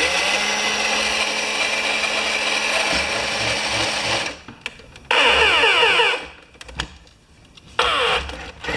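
Small electric drive motor and gearbox of a scale model fire truck running in three bursts as it drives forward and back: a steady run of about four seconds, then two shorter runs with a rising whine.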